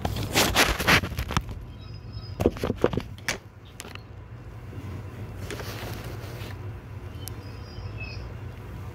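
Handling noise from a phone being repositioned by hand: a run of rubs, bumps and knocks over the first three and a half seconds, then a few softer clicks later on. A steady low hum sits under it throughout.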